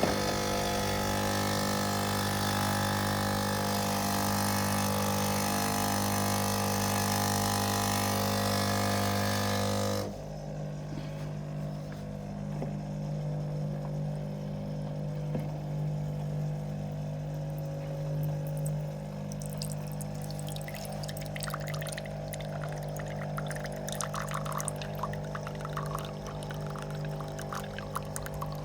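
De'Longhi Eletta Explore fully automatic coffee machine running: a loud, steady mechanical hum for about ten seconds stops abruptly. A quieter steady hum follows, and from about two-thirds of the way in, liquid trickles and splashes as the machine dispenses.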